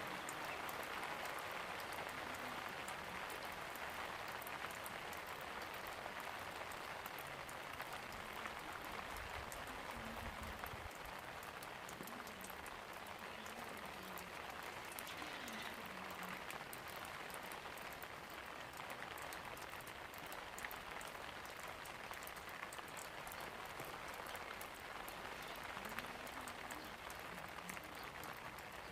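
Steady rain falling: an even hiss of many small drops pattering, with faint separate drop ticks through it.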